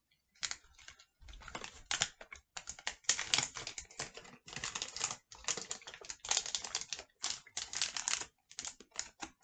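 Close-up chewing of a protein bar: quick, irregular clusters of soft crackling and wet mouth clicks.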